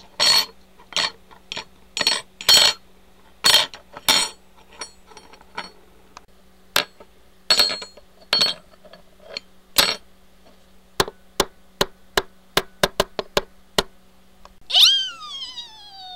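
A series of sharp knocks and clicks, irregular at first, then a quicker even run of about three a second. Near the end comes a pitched cry that falls steeply.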